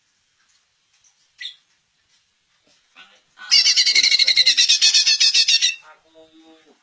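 Cucak ijo (greater green leafbird) singing: a few soft chirps, then about halfway in a loud, fast run of high notes, roughly ten a second, lasting about two seconds.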